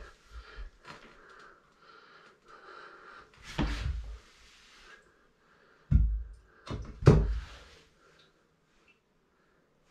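Porcelain toilet being rocked and lifted off its floor flange, its base knocking heavily on the floor once about a third of the way in and twice more past the middle as it is shifted and set down, with lighter scraping and handling noise between the knocks.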